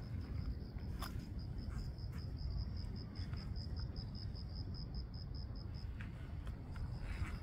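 An insect, cricket-like, chirping in a steady, even train of short high-pitched pulses, about six or seven a second, that breaks off briefly near the end. Under it is a steady low rumble, with a couple of faint clicks.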